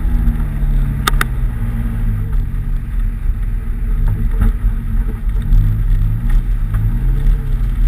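Nissan 200SX engine revving hard while the car is driven on snow, its pitch rising and falling again and again, with two sharp clicks about a second in.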